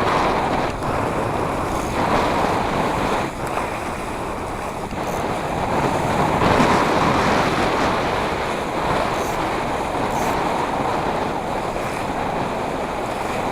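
Steady rush of wind on the microphone with water splashing and washing along a Laser dinghy's hull under sail, swelling a little about halfway through.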